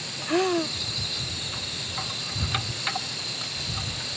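Crickets chirping steadily in the background. A short hummed voice comes just after the start, and two light knocks follow a little past the middle.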